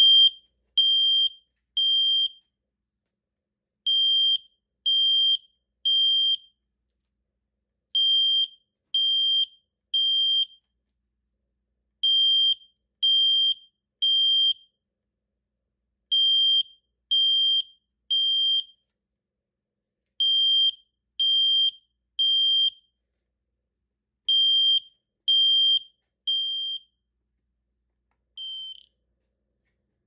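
Gentex Commander 1 horn/strobe's piezo horn sounding the code 3 (temporal-three) pattern. It gives three high-pitched beeps, pauses, and repeats about every four seconds for seven rounds, much like a smoke detector's piezo. A single shorter, weaker beep follows near the end.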